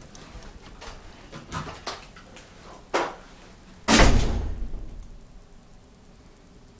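A door being shut, landing with a loud thud about four seconds in that dies away over about a second, after a few lighter clicks and knocks.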